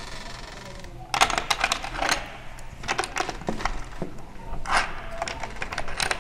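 A metal door chain being unhooked from its slide track: the chain rattles and clinks in a string of sharp metallic clicks, starting about a second in.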